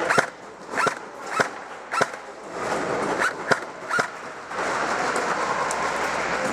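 Airsoft guns firing single shots: about seven sharp cracks, irregularly spaced over some four seconds, followed by a steady noisy background.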